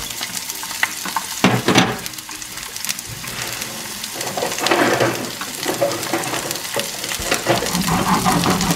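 Roughly cut onion pieces sizzling in hot oil in a nonstick frying pan, with a short louder burst of sizzle about a second and a half in.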